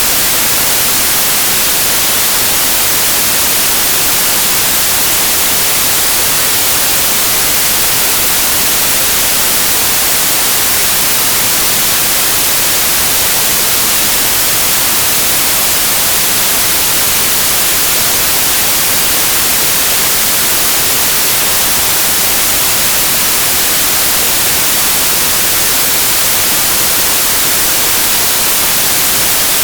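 Steady, loud white noise: an even hiss with no variation, brightest in the high range.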